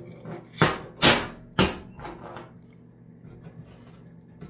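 A 3D-printed plastic infinity fidget toy being flipped through itself by hand. It clacks sharply three times in the first couple of seconds, then gives a few softer ticks.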